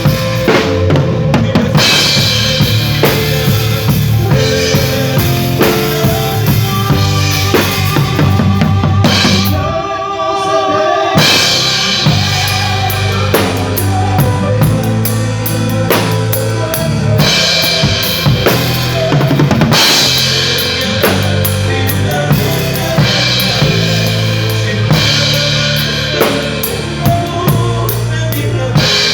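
A live band playing at a sound check: a drum kit with bass drum and snare keeps the beat under held bass notes and chords. The low end drops out briefly about ten seconds in, then the full band comes back.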